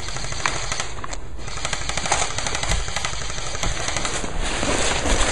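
Airsoft guns firing fast, continuous rattling bursts of automatic fire.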